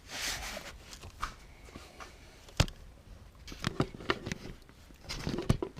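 Hands handling jumper wires and their connectors: a brief rustle, then a series of sharp clicks and taps, the loudest about two and a half seconds in.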